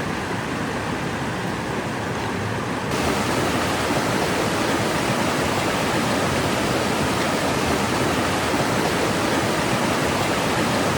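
Steady rush of the Chania River's fast-flowing water, louder and brighter from about three seconds in.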